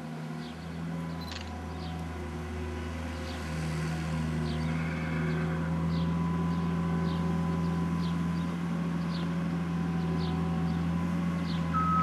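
Red International Harvester farm tractor's engine running steadily with a low hum, growing louder about three and a half seconds in.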